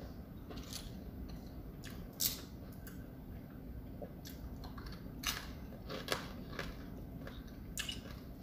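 Eating sounds: scattered sharp crunches and clicks as food is chewed and picked apart by hand, the loudest about two seconds in.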